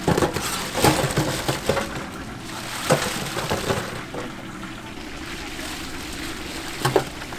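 Fried-chicken cooking sounds: a steady hiss with metal utensils knocking and clattering several times, the sharpest knocks near the start, about three seconds in and near the end.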